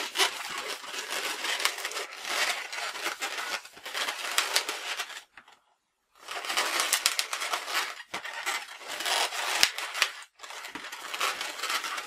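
Inflated latex twisting balloon (an orange 260) rubbing against itself and under the hands as the bubbles are squeezed and adjusted into shape. The rubbing stops for about a second midway, then resumes.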